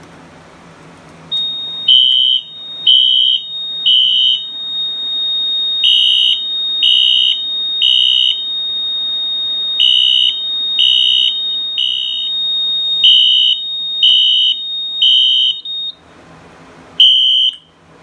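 Fire alarm horn strobe sounding high-pitched blasts in groups of three, the temporal-three evacuation pattern, over a steady high tone. The alarm was set off by pulling a Fire-Lite BG12L pull station on a Silent Knight 5820XL panel. The horn and tone cut off about 16 seconds in, and one last blast follows a second later.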